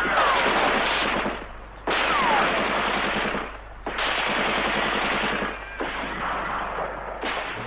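Automatic gunfire in four long bursts, each more than a second long, with short breaks between them. Two falling whistling tones sound over it, one at the start and one about two seconds in.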